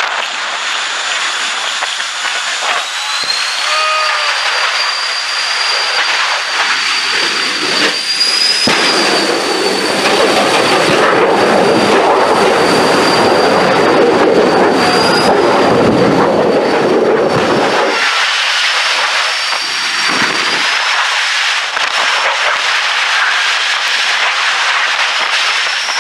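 Two jet cars' turbine engines running: a steady high whine that steps up in pitch about two seconds in, under a rushing roar that swells from about nine seconds as the afterburners light, then drops off suddenly near eighteen seconds.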